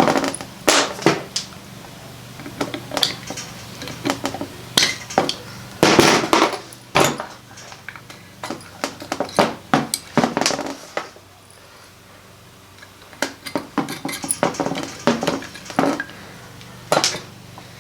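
Small metal parts of an Edelbrock 1405 carburetor clinking and knocking as they are handled and set down during disassembly: a run of irregular sharp clicks and clatters, with a short lull partway through.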